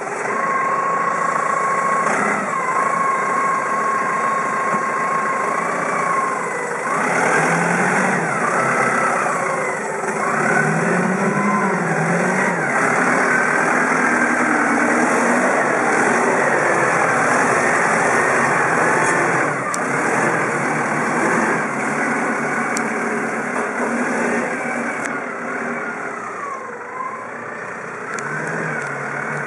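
Clark C40 4-tonne diesel forklift engine running. It idles with a steady whine for the first few seconds, then revs up and down repeatedly as the truck works and drives.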